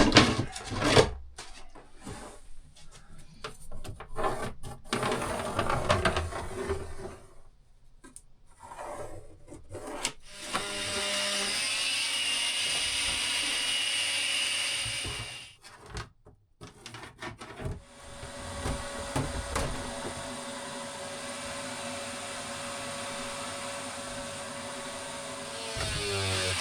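Irregular knocking and clattering of wood and tools being handled, then a steady mechanical noise lasting about five seconds, and after a short break a quieter steady noise for the rest of the time.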